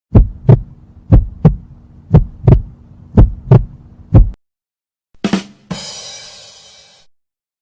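Heartbeat sound effect: deep thumps in lub-dub pairs, about one beat a second, for about four seconds. A short hit follows near the five-second mark, then a fading ringing noise for about a second and a half.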